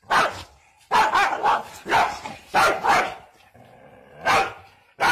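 A dog barking repeatedly at a chicken it is squaring up to: about seven barks, with a pause of about a second near the end.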